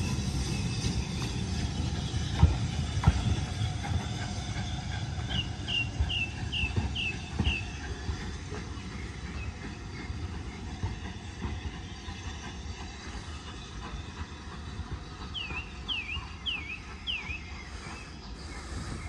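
BR Standard Class 5 steam train rumbling along the track with a few wheel clicks, fading steadily as it draws away. A bird sings over it: a run of six short falling chirps about five seconds in, and four more near the end.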